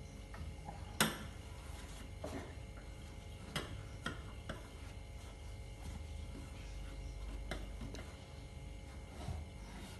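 A wooden cabinet door knocks shut sharply about a second in, followed by scattered light knocks and taps against the wooden cabinet.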